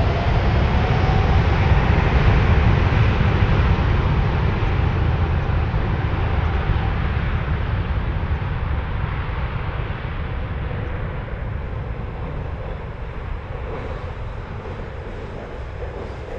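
Boeing 777-200 jet engines running as the airliner turns and rolls away down the runway, a loud rumble that slowly fades.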